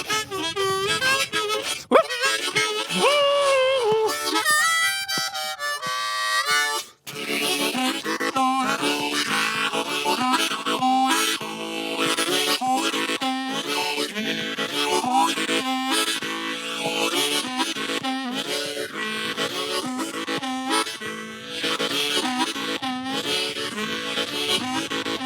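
Solo harmonica instrumental between sung verses. The first few seconds are bent, wavering notes. About seven seconds in there is a brief break, then a steady, rhythmic chugging of chords.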